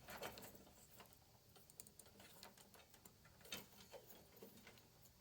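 Faint, scattered small clicks from handling wires and small plastic Dupont connector housings, with a slightly louder click about three and a half seconds in.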